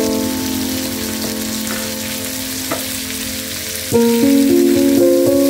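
Tomatoes, onions and garlic sizzling as they fry in oil in a pan, a steady hiss, under background music with held notes that change about four seconds in. One brief click sounds just past the middle.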